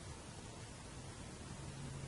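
Faint steady hiss with the tap turned off: bathroom room tone, with a faint low hum coming in near the end.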